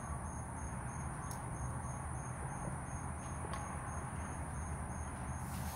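Evening insects chirping: a steady high-pitched buzz with a second chirp pulsing about three times a second, over a steady low background rumble. A couple of faint clicks are heard.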